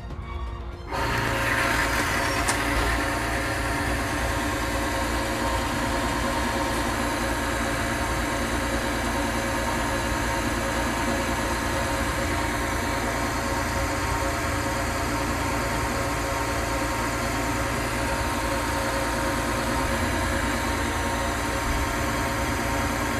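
Electric motor of a bench-top oil lubricity test machine starting up about a second in, then running steadily: a hum with steady tones over a rubbing haze as its steel wheel spins through the oil bath against a lever-loaded test bearing.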